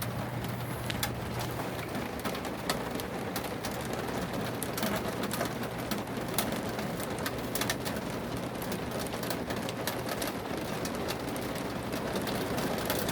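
Steady rain from Tropical Storm Fay falling on and around an RV, with many sharp drop hits over a low steady hum.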